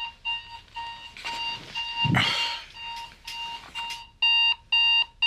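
Electronic wake-up alarm beeping in short, evenly spaced beeps, about three a second, then turning much louder and longer about four seconds in. A brief rustle about two seconds in.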